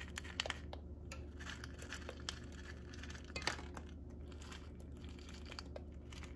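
Pancake batter sizzling faintly in a greased nonstick frying pan, with small irregular crackles and pops, the loudest about three and a half seconds in. A steady low hum lies underneath.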